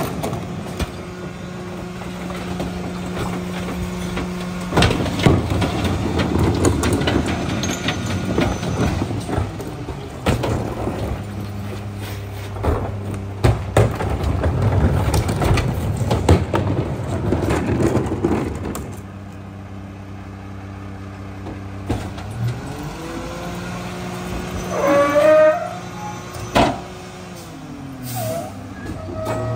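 Mack McNeilus rear-loader garbage truck packing trash: the diesel engine runs steadily while the hydraulic packer crushes and clatters the load in the hopper, with sharp knocks of bins against the hopper. Later the engine revs up and back down under the packer's load, with a brief squeal near the end.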